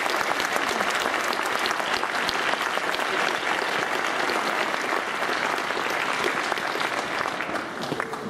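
Audience applauding steadily, the clapping dying down near the end.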